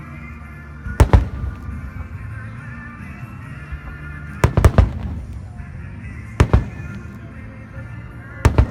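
Fireworks bursting overhead: four clusters of two or three sharp bangs, roughly two seconds apart, over steady background music.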